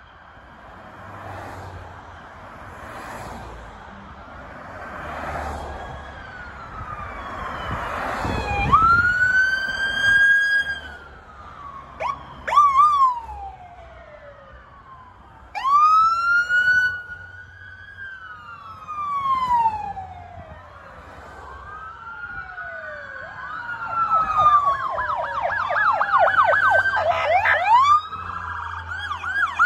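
Several police cruiser sirens overlapping as the cars pass, faint at first and growing louder. Long wails rise and fall, with a couple of short whoops, and a fast yelp of about four sweeps a second takes over near the end.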